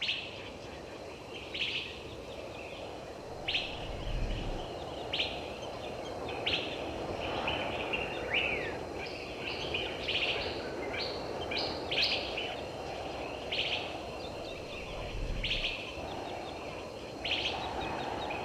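Birds calling: a short high call repeated every second or two among lighter chirps, with one falling note about eight seconds in, over a steady background hiss.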